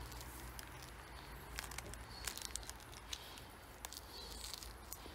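A mandarin being peeled by hand: faint, scattered soft clicks and tearing of the rind over a low steady rumble.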